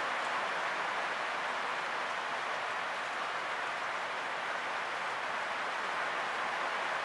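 Steady rain, an even hiss that holds at one level throughout.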